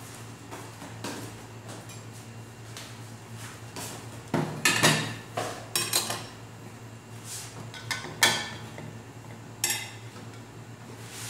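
Metal pots and utensils clattering and clinking, with several sharp knocks and a busy cluster a little before the middle, over a steady low hum.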